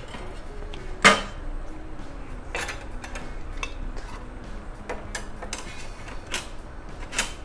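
Light metallic taps and clinks as the stainless-steel weighing-pan parts of an A&D GR-200 analytical balance are set into the weighing chamber, with a sharp knock about a second in and a few lighter taps later.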